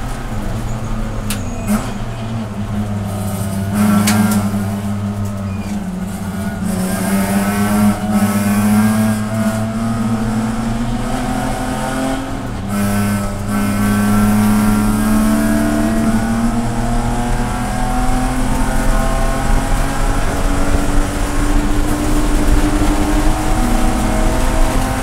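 In-cabin sound of a BMW E46 race car's straight-six engine at racing speed, its pitch rising and falling through the gears, with wind and road noise. About twelve seconds in it comes off the throttle as the car slows for a corner, then pulls hard again.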